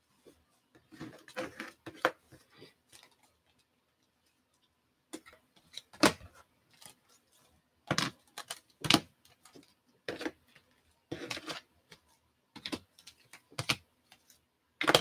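Hard clear plastic card cases clicking and clacking against one another and against the table as a stack of cased trading cards is handled and laid out. The clicks are sharp and irregular: a cluster about a second in, a short pause, then single clacks every second or so.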